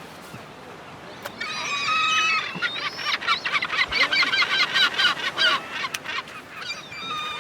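Gulls calling: a few drawn-out cries from about a second and a half in, then a fast run of short, repeated calls that thins out near the end.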